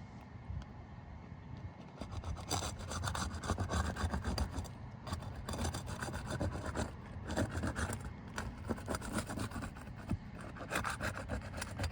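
Gritty scraping and rubbing on roof shingles in rapid, irregular strokes, starting about two seconds in.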